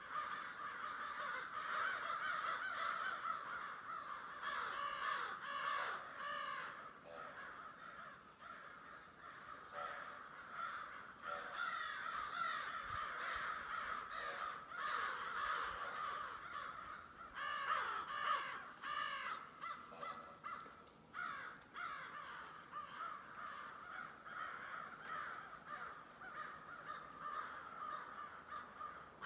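A large flock of crows cawing, many calls overlapping into a continuous chorus.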